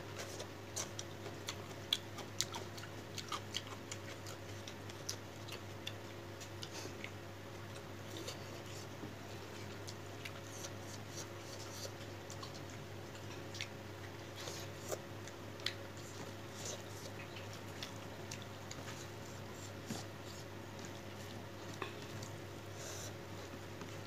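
Close-up eating sounds of fish curry: soft wet chewing and lip smacks with scattered small clicks, over a steady low hum.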